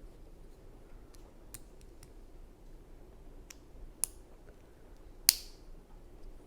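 LEGO plastic pieces being handled and pressed together: a scatter of faint ticks, then two sharper clicks about four and five seconds in, the second the loudest.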